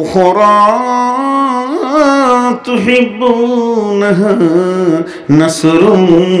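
A man reciting a Quranic verse in Arabic in a melodic chant, holding long notes and sliding between them, with brief pauses for breath.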